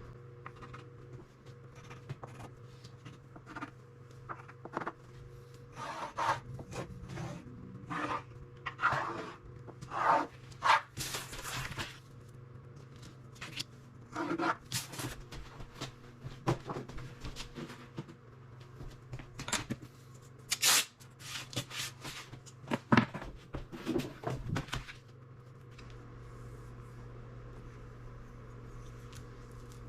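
Irregular rubbing, scraping and light knocks of hands and materials being worked over a laminate countertop, busiest in the middle and dying away near the end.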